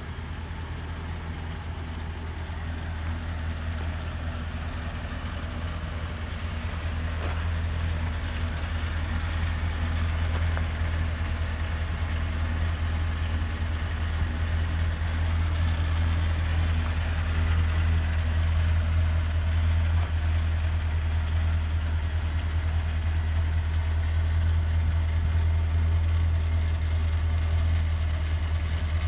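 Engine of a 2007 C4500 medium-duty box truck idling steadily, growing louder over the first ten seconds or so.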